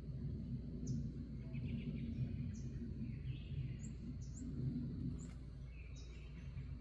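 Birds calling: a short high chirp repeated about once a second, with a few lower twittering phrases in between, over a steady low rumble.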